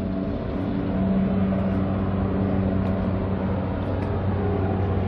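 A motor vehicle's engine running, a steady low drone over road noise.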